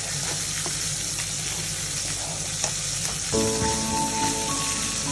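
Plastic spatula stirring a pot of thickening coconut-milk and corn mixture, a few light clicks over a steady hiss. Background music comes in about three seconds in.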